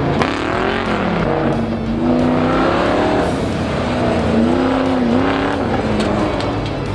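Modified pickup truck engine revving hard, its pitch rising and falling again and again as the truck is thrown through an autocross course.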